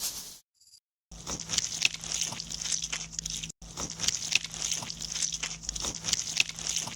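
Dense crackling and crunching, like food being bitten or cooked, made of many small clicks over a faint steady hum. It starts about a second in and drops out briefly about halfway through.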